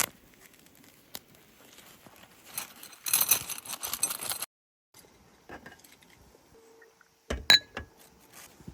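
Light clinks and knocks of hard objects handled, with a dense rattling stretch about three seconds in and one sharp knock near the end.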